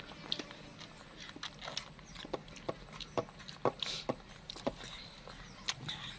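Two baby macaques slurping and lapping milk from plastic trays with their mouths: an irregular run of wet smacks and sucking clicks, several a second.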